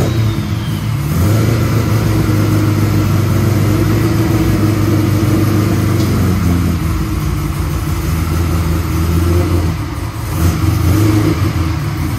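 C5 Corvette's LS V8 running at low revs as the car creeps up into an enclosed trailer, steady, with a brief dip about ten seconds in.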